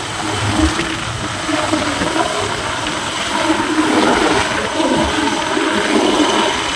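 Helicopter flying, its engine and rotor noise running steadily and loudly.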